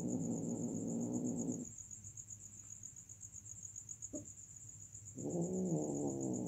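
Domestic cats mating: a long, low, wavering yowl that stops about a second and a half in, and a second one starting about five seconds in. A steady high-pitched tone runs underneath.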